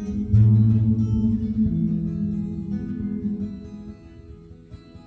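Acoustic guitar playing with no voice. A chord strummed about half a second in rings out and fades over the next few seconds, leaving quieter picked notes.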